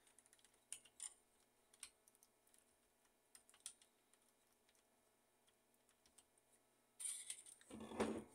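Faint, sparse clicks and taps of small plastic parts being fitted by hand on a laser printer fuser assembly, then louder rubbing and clattering about seven seconds in as the fuser is picked up and turned over.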